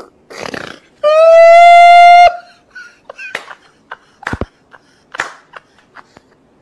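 A man laughing hard: a long, loud, high-pitched shriek of laughter held for about a second and cut off suddenly, followed by a string of short, sharp bursts.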